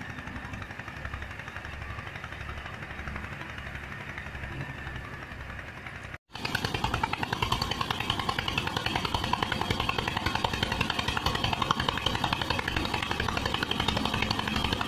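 Tractor-driven wheat thresher running steadily: the tractor's diesel engine and the thresher's spinning drum make a dense, rhythmic mechanical sound. It is quieter at first, cuts out briefly about six seconds in, then returns louder while wheat bundles are fed in.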